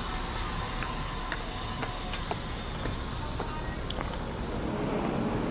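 Outdoor street ambience: a steady low rumble of traffic and surroundings, with faint footsteps ticking now and then.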